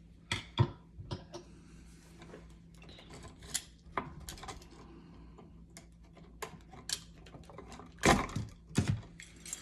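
Irregular small metallic clicks and taps from a screwdriver and wires being worked at a wall switch while its ground wire is unscrewed, with a louder cluster of knocks near the end.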